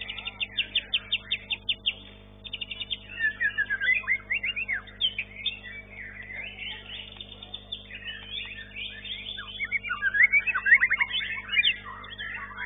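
White-rumped shama (murai batu) singing a fast, varied song: a train of quick repeated notes at the start, then many short rising whistled phrases, loudest a couple of seconds before the end.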